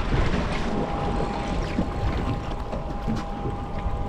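Wind buffeting the microphone and water sloshing around a boat hull offshore, with a faint steady high tone held through most of it.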